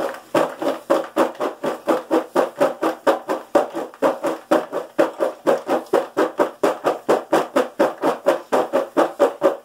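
French fries being shaken in a covered plastic bowl: a fast, even rattling of about five to six shakes a second.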